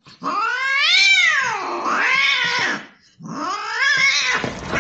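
Scottish Fold kitten giving two long, drawn-out meows, each rising then falling in pitch, the first with two swells, separated by a short pause about three seconds in.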